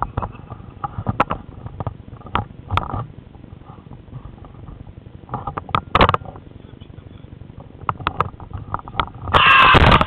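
Handling noise from a small camera fixed to a wooden bokken as it is moved: scattered knocks and rubs, with a louder, longer rush of rubbing or wind noise near the end.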